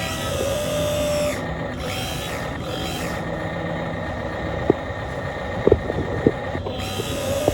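Radio-controlled model excavator working: a whining electric hydraulic pump and motors, rising and falling in pitch as the controls move, with a few sharp clicks in the second half.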